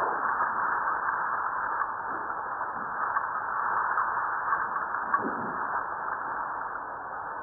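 Seismometer recording of Fuego volcano sped up 150 times so that it is audible. It plays as a steady hiss of seismic background tremor, with a brief low sweep about five seconds in from a small seismic event.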